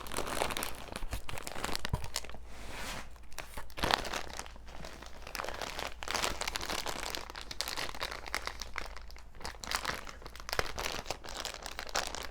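Paper or plastic packaging being handled: continuous crinkling and rustling with sharp crackles and some tearing, as a gift box is unpacked.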